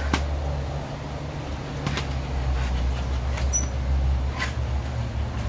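A dog nudging a plastic play ball against the metal frame of a folding lounge chair, making a few light knocks and clicks over a steady low rumble.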